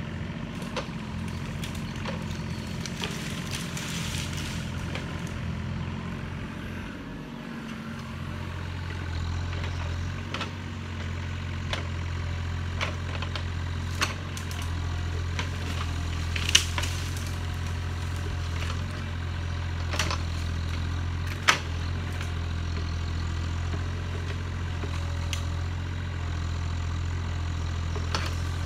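Yanmar ViO35 mini excavator's three-cylinder diesel engine running steadily as the boom and bucket work into brush, its note getting heavier and a little louder about eight seconds in. A few sharp cracks stand out over the engine in the second half.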